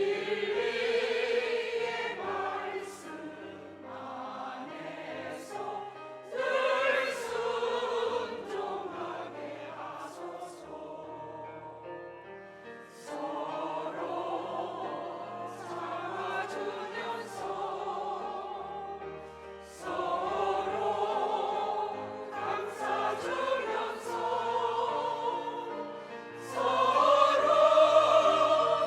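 Church choir singing a hymn in sustained phrases, swelling louder near the end.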